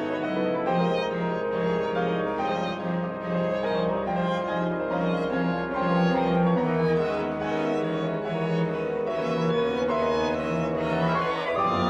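Chamber ensemble playing contemporary classical music: violins, cello and double bass with piano. A low note repeats in an even pulse about three times a second under the strings, and near the end a sustained low note comes in.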